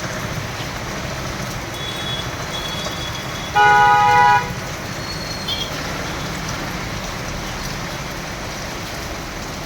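Steady heavy rain, with a vehicle horn sounding once for under a second about three and a half seconds in, louder than the rain.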